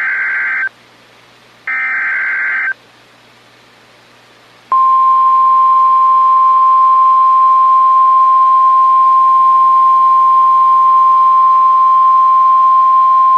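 NOAA Weather Radio SAME alert header: two screechy data bursts of about a second each, a short pause, then the single steady 1050 Hz warning alarm tone held for about nine seconds. It is the signal that a National Weather Service warning, here a severe thunderstorm warning, is about to be read.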